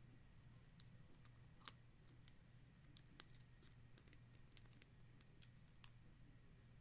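Faint, irregular small plastic clicks and taps of action-figure parts being handled and fitted together, over a low steady room hum.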